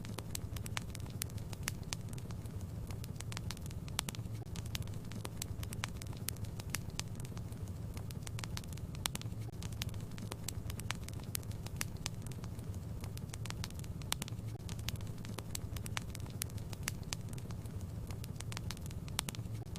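Wood fire burning in a fireplace, crackling with many irregular sharp pops over a steady low hum.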